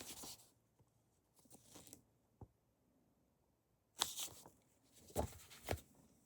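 Comic books being handled and swapped: scattered short rustling and crinkling sounds, the loudest about four and five seconds in, with a small click midway.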